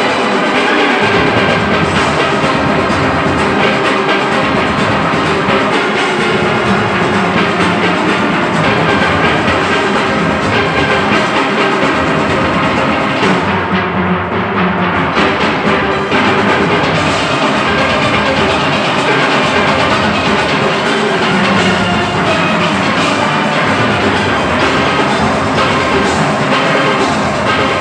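A large steel orchestra playing loudly together: many steelpans, from small high pans to big bass pans, over a rhythm section of drums and percussion.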